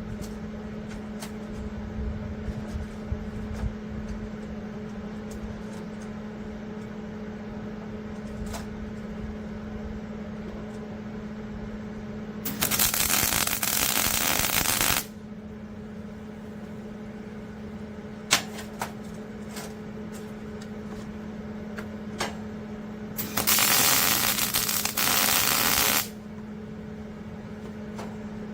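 Welding arc crackling in two welds on rebar, each lasting about two and a half seconds, one about halfway through and one near the end. Under them is a steady electric hum, with a few light metal clicks between the welds.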